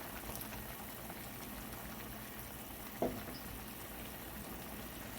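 Chicken and sauce boiling in a pot on a stove on high heat, a steady bubbling noise. A single brief sharp sound about three seconds in.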